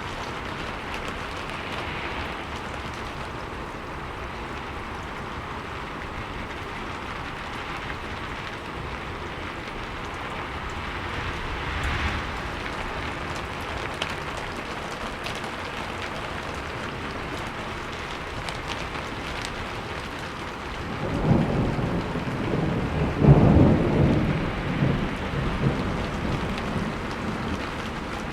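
Steady heavy rain falling. About three-quarters of the way through, a low rolling rumble of thunder builds, is loudest a couple of seconds later, then fades back under the rain.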